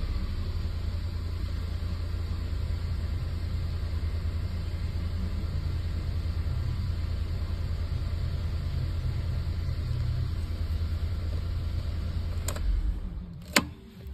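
Mk1 Audi TT 225 Quattro's replacement BAM 1.8-litre turbocharged four-cylinder idling steadily at about 900 rpm on its first start-up after the engine swap. Two sharp clicks come near the end.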